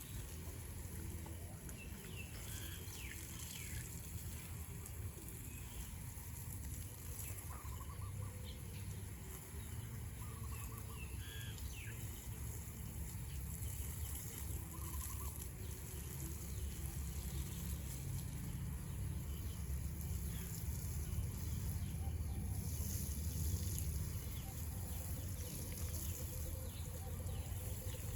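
A few faint, short chicken clucks, scattered and mostly in the first half, over a steady low rumble and hiss.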